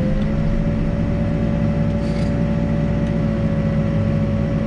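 Backhoe's diesel engine running at steady revs under a steady whine, which rises slightly in pitch just after the start.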